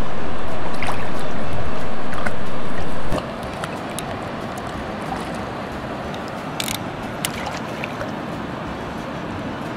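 River water rushing and sloshing close to the microphone, as an even wash of noise. It is loud for about three seconds, then drops abruptly to a lower, steady wash with a few faint clicks.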